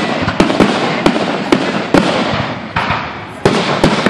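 Aerial fireworks display: shells bursting with sharp bangs over a continuous dense crackle of sparks. There are several bangs in the first two seconds, then a lull as the crackle fades, then two more bangs near the end.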